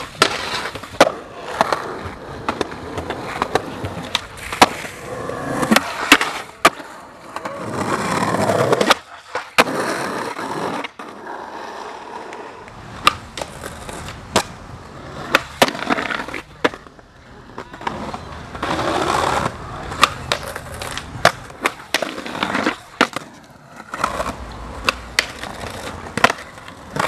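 Skateboarding on concrete and ledges: wheels rolling, many sharp snaps of boards popping and landing, and boards scraping as they grind and slide along ledges, in a string of separate tricks.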